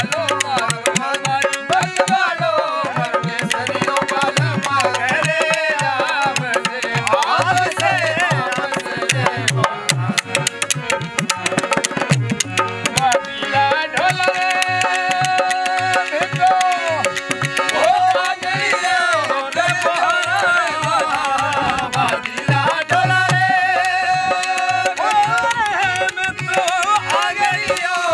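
Rajasthani folk song: a male voice sings over a harmonium's sustained reeds, a dholak drum beating a quick rhythm and the clack of wooden khartal clappers.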